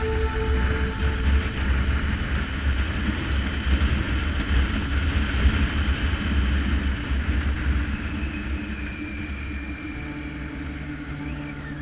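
Motorcycle on the move: heavy wind rumble on the microphone over engine and road noise, easing off a little near the end.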